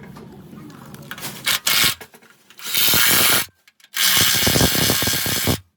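Harsh rasping scrape of a tool working against a part, in three loud stretches that start and stop abruptly, the last about a second and a half long.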